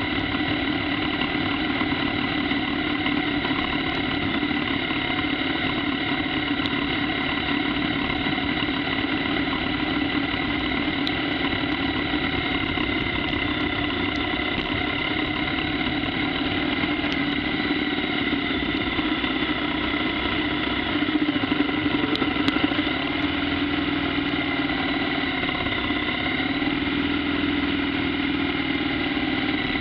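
Onboard sound of a 2015 BMW R1200GS Adventure's boxer-twin engine running steadily at cruising speed on a wet gravel road, over a constant rush of wind and tyre noise. The engine note wavers slightly in the second half, and a few sharp clicks come about three quarters of the way through.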